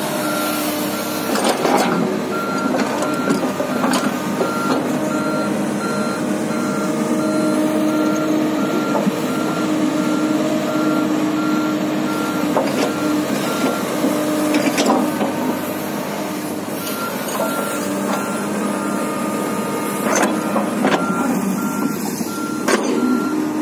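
Komatsu PC300-8 hydraulic excavator's diesel engine running as it travels on its tracks, with its travel alarm beeping in a steady, even rhythm that pauses for a few seconds about halfway through. A few sharp metallic clanks come through now and then.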